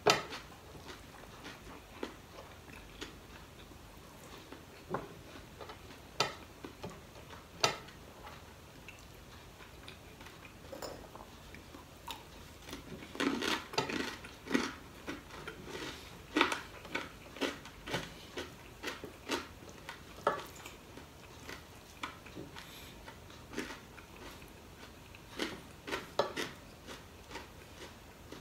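Eating by hand from a ceramic plate: scattered clicks and taps of fingers and food against the plate, mixed with chewing. The sounds come thickest in a busy stretch about halfway through.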